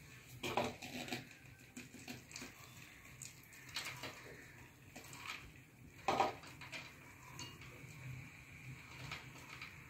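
Scattered light clinks and knocks of a vessel against a metal kadai as drained basmati rice is tipped onto the masala, the loudest about six seconds in. A faint steady hum lies underneath.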